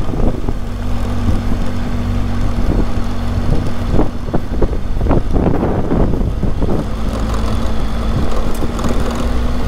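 Motorcycle engine running steadily while riding, with road and wind noise, and a brief clatter of knocks about halfway through.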